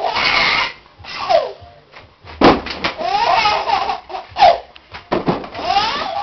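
A toddler laughing hard in repeated bursts of varying length.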